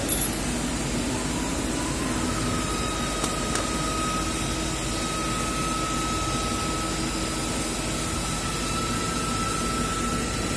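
CNC lathe running: a steady machine hum, joined about two seconds in by a thin high whine that holds and creeps slightly upward in pitch.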